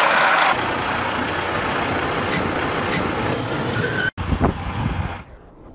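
Steel wheels of a slow-moving railway wagon rolling along the rail, a steady loud noise. It breaks off abruptly about four seconds in, and a lower rumble follows that dies away near the end.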